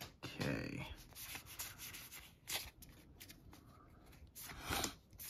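A small stack of trading cards handled and flipped through by hand: soft rustling of card stock sliding over card, with a few louder swishes as cards are pulled across the stack.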